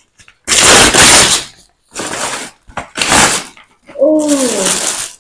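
Parcel packaging being torn open and a clear plastic wrapper crinkling, in three loud rustling bursts. Near the end a short voice sound falls in pitch over more plastic rustling.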